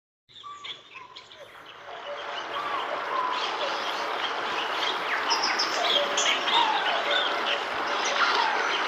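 Smartphone alarm tone made of recorded birdsong: many birds chirping and trilling over a soft steady hiss, fading in after a brief silence and growing louder over the first few seconds.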